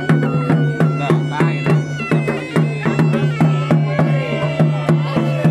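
Traditional music for the bridal procession: a drum beating a quick, even rhythm of about three strokes a second under a steady low drone and a wavering, reedy wind-instrument melody.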